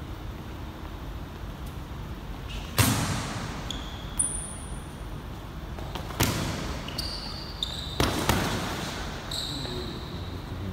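Boxing gloves landing punches during sparring: about five sharp smacks a second or two apart, each echoing in a large gym hall, with short high sneaker squeaks on the court floor between them.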